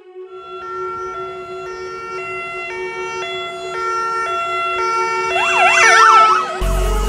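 Electronic music building over a steady drone with a stepped melody. About five and a half seconds in, an emergency siren yelps in fast up-and-down sweeps for about a second, the loudest moment. A heavy bass beat then drops in near the end.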